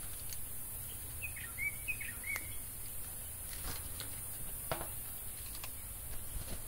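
Quiet outdoor ambience with a quick run of four or five short, high, gliding chirps a little over a second in, and scattered light clicks and taps.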